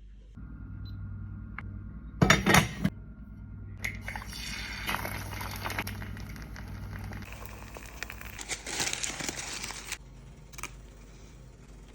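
Kitchen food-preparation handling sounds: a cluster of sharp knocks or clatter about two seconds in, then rustling and crinkling, over a low steady hum.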